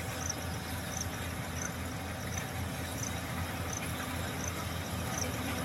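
Yanmar 70GV rice combine harvester's diesel engine running steadily, with a pulsing low hum. A faint high chirp repeats about every three-quarters of a second above it.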